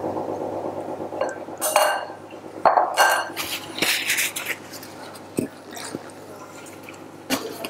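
Kitchen utensils scraping and clinking against an oval stainless steel baking dish as mascarpone cream is scraped off a silicone spatula and a metal utensil: several short scrapes and clinks, some with a brief metallic ring, then the steel dish is handled on a marble worktop near the end.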